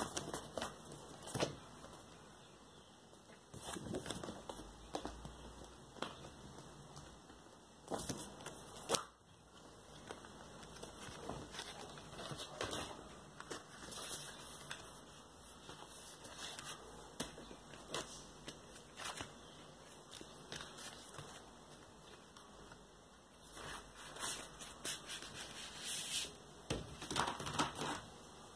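Stiff card sleeves and glossy prints from a vinyl box set being handled: intermittent rustling and sliding of card, with a few sharp clicks and taps.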